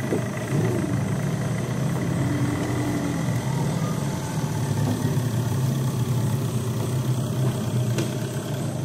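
A boat's motor running steadily, a constant low hum, as the canoe moves through the flooded forest.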